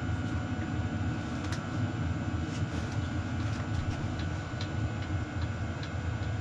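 A steady, low machine hum, with faint, scattered small ticks over it.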